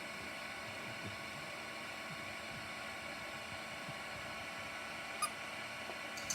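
Heat gun running steadily, blowing hot air onto a steel screw head to heat it, with a single light click about five seconds in.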